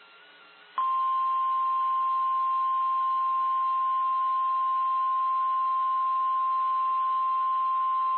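NOAA Weather Radio warning alarm tone: a single steady high tone that comes in about a second in over faint radio hiss and holds unchanged. It is the signal that a weather warning broadcast is about to follow.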